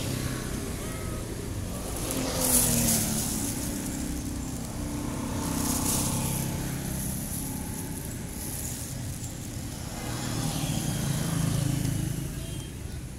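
Engines of passing road vehicles, swelling and fading about three times.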